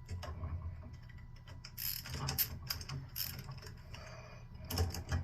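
Screwdriver tightening a wire's terminal screw on a light switch: irregular small clicks and metal scraping, in a cluster about two seconds in and again near the end.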